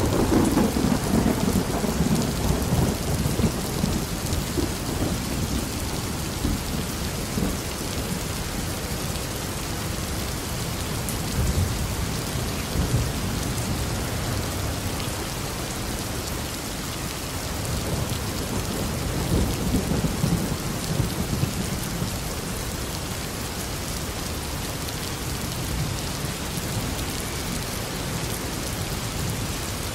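Steady rain with thunder. A loud rumble already under way at the start dies away over the first few seconds, and another rumble swells and fades about two-thirds of the way through.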